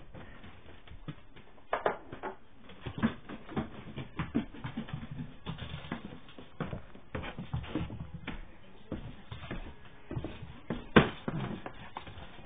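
Irregular soft taps, scuffs and rustles of a puppy moving about at play, mixed with handling noise of the camera, with a louder knock about eleven seconds in.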